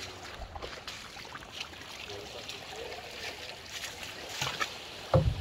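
Water lapping and trickling around a small boat's hull, with scattered light knocks and one low thump near the end.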